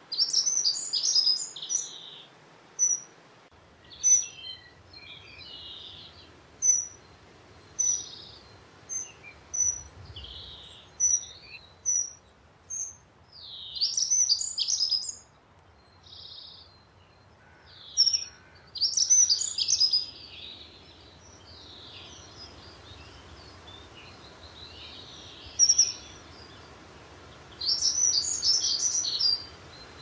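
Dunnock singing: four short, hurried, high warbling phrases, at the start, twice around the middle and near the end. Thin, high single notes come in a loose series between the phrases.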